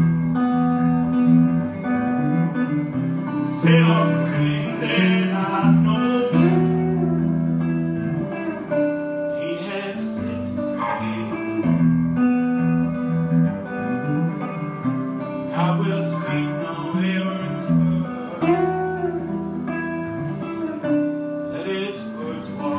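A man singing into a microphone while playing a guitar, a solo live song. Sung phrases come and go over steadily played chords.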